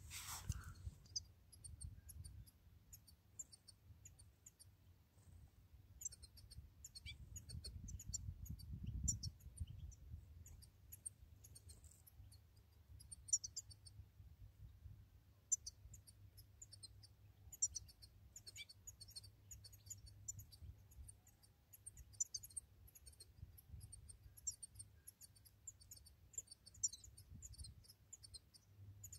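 European goldfinches twittering: faint, quick runs of high, thin chirps that come in bursts, with a short pause about halfway through, over a low rumble.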